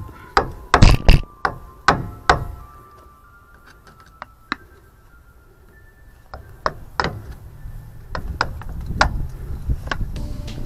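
Hammer blows on metal, working at a stubborn crimped steel clamp band on a rack-and-pinion steering boot: a quick run of sharp, ringing strikes in the first two and a half seconds, then a lone strike and, from past the middle, more spaced strikes.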